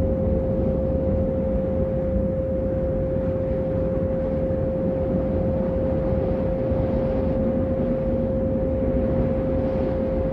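A steady synthesized pure tone held at one pitch a little above 500 Hz, the kind played as a meditation 'healing frequency', over a constant low noise bed.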